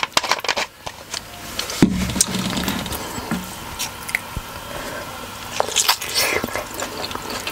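Close-miked mukbang eating sounds: wet mouth clicks and smacks, then about six seconds in a soft, juicy bite into a big steamed pork momo dipped in tomato achar.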